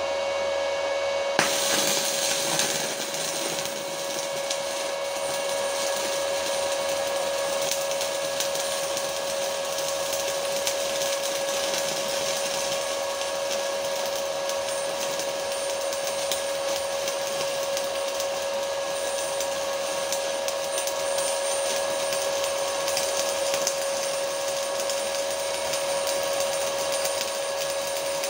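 Stick-welding arc from an S-Pro 200 inverter welder burning an LB-52U 2.6 mm basic-coated electrode on steel. The arc strikes about a second and a half in, then runs as a steady hiss. A steady whine runs underneath throughout.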